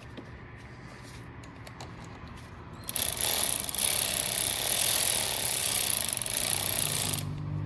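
A few light clicks of handling, then a power tool runs steadily for about four seconds and stops suddenly.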